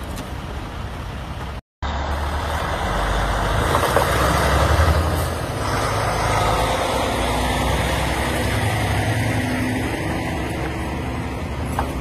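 Loaded logging truck passing close by: heavy diesel engine rumble with tyre and road noise, swelling loudest about four to five seconds in and then running steadily. The sound drops out for a moment just before two seconds.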